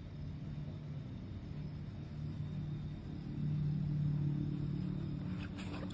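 A low, steady rumbling hum that grows a little louder about three and a half seconds in, with brief paper rustling near the end.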